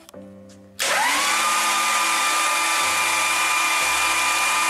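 Starter motor cranking a 454 big-block Chevy V8 with its spark plugs out, so there is no compression to slow it: a steady high whine that cuts in sharply about a second in, spins up quickly and holds an even pitch.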